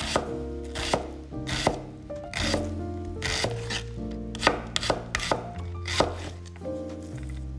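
Chef's knife dicing a red onion on a wooden cutting board: sharp, uneven chops of the blade against the wood, about one or two a second.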